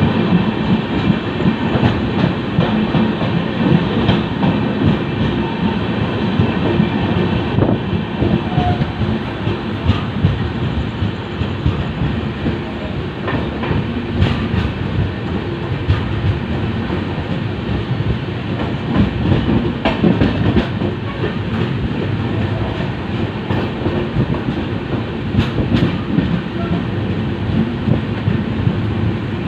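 LHB passenger coach running along the track, a steady rumble of wheels on rails with a few scattered sharp clicks.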